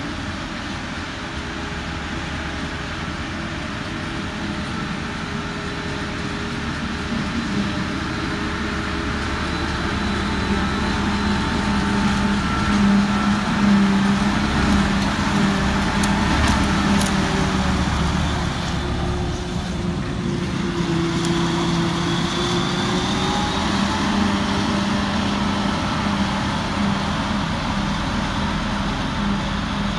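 Claas Jaguar self-propelled forage harvester running under load as it picks up a grass swath and blows chopped silage into a trailer, with the tractor pulling the trailer running alongside. The steady machine noise grows a little louder over the first dozen seconds, then holds.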